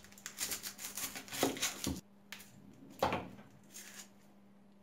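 Knife peeling the dry papery skin off an onion, the skin crackling and tearing in quick small clicks, with a few sharp knocks of the knife on a wooden cutting board. It goes quieter after about two seconds.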